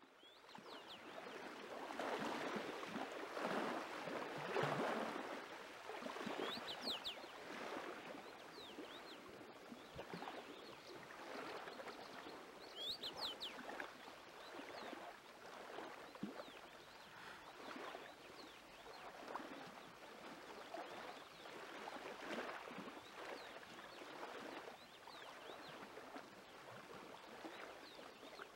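Lakeshore ambience: small waves washing in with a swelling, rushing noise, and short bird chirps about 7 and 13 seconds in.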